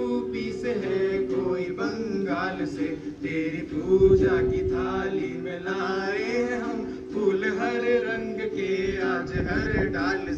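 Men's voices singing a song together, with long held notes and the loudest swell about four seconds in.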